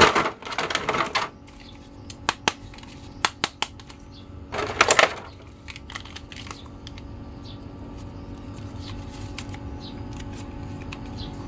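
Clear plastic packaging crinkling and clicking as plastic toy action figures are handled and unwrapped. A dense crackle at the start is followed by scattered sharp clicks, another crinkly burst about five seconds in, then fainter ticks.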